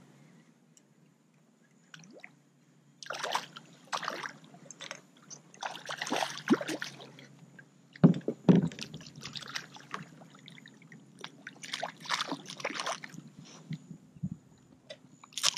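Water splashing and sloshing in irregular bursts beside a kayak as a hooked redfish thrashes at the surface, starting about three seconds in. A sharp knock about eight seconds in.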